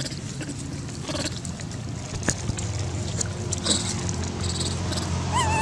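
Outdoor background noise with scattered faint clicks and rustles, and a low engine hum from a vehicle that grows louder toward the end.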